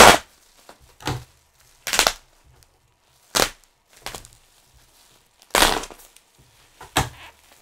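Packing material being pulled out of a shipping box and handled: short crackling, crunching bursts of cardboard and plastic wrap, about seven of them, the loudest right at the start.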